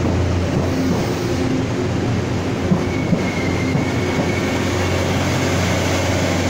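Taiwan Railway DR3100 diesel multiple unit rolling along the station platform, a steady low diesel hum under rail and wheel noise. A thin high squeal joins about halfway through, and there are two short knocks just before it.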